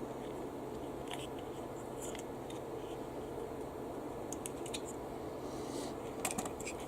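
Scattered light clicks and taps of small parts being handled on a workbench, the loudest cluster near the end, over a steady low hum.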